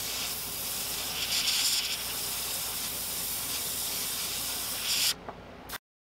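Airbrush spraying pearl white paint in a steady hiss of air, which cuts off abruptly about five seconds in.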